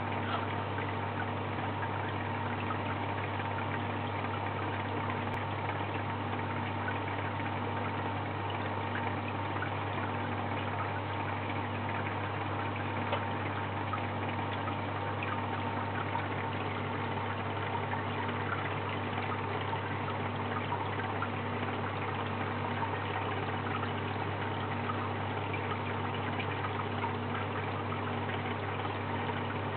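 Aquarium pumps running steadily with water circulating and bubbling: a constant low hum under an even wash of moving water.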